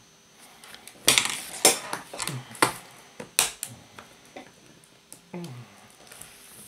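Plastic casing of a solar power bank cracking and snapping as it is pried and pulled apart. There are four loud sharp cracks in the first few seconds and smaller clicks between them.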